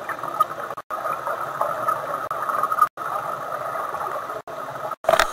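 Underwater noise picked up by a camera in a dive housing: a steady gurgling rush that cuts out for an instant four times, with a louder crackle near the end.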